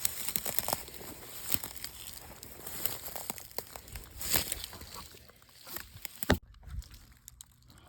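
Dry leaves and brush crackling and rustling under footsteps, with twigs snapping and one sharp knock about six seconds in; it goes quieter near the end.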